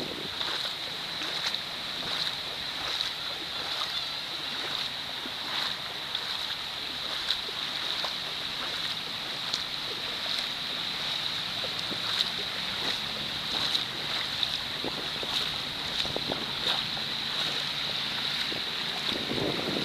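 Small waves washing up onto a sandy beach and running back, a steady hiss of moving water broken by frequent small splashes and fizzes.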